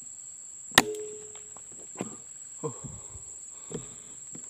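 A single shot from an uklik (PCP) air rifle just under a second in: a sharp crack with a short metallic ring after it. A few softer knocks follow over the next three seconds, over a steady high insect drone.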